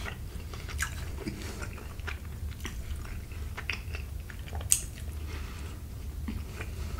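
Close-miked chewing and wet mouth sounds of someone eating fettuccine Alfredo, with light clicks from a fork working in the pasta on the plate, over a low steady hum. One sharper click stands out about two-thirds of the way through.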